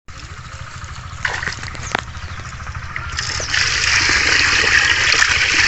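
Water splashing and trickling, growing louder about three seconds in, with a couple of short knocks before that.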